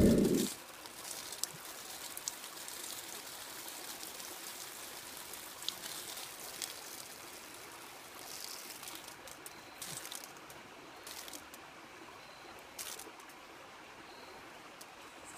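Water running in a small stream, a steady trickling wash, with a few faint ticks now and then.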